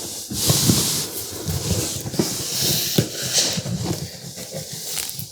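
Packaging rustling and crinkling as a boxed stand mixer is unpacked by hand, with small knocks and scrapes as pieces are handled.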